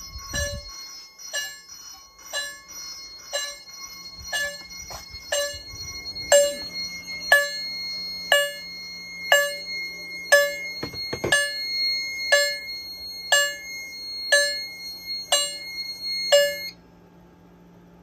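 Fire alarm chimes striking in march time at about one strike a second, over a steady high tone. It all cuts off suddenly near the end.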